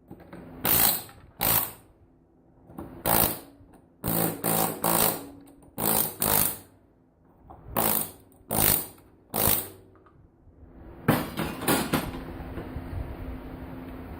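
Pneumatic air chisel firing in about a dozen short bursts, some in quick pairs and triplets, as it knocks components off a scrap circuit board. Near the end the bursts give way to a steady noise.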